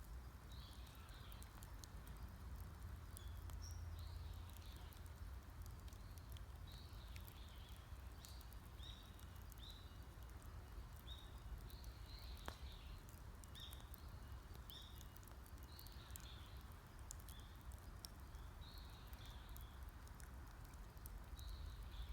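A wood fire crackling faintly with scattered small pops, while a bird repeats short high calls about once a second.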